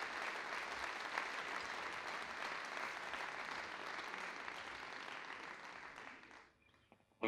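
Audience applauding, the clapping thinning out and stopping about six and a half seconds in.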